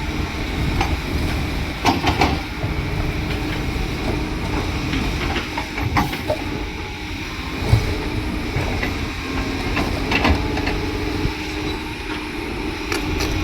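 Heavy construction machine engine running steadily, with scattered metallic clanks and knocks.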